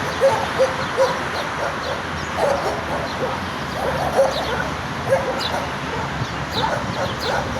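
Dogs barking aggressively in short, irregular barks, with higher yelps mixed in, over a steady background hiss.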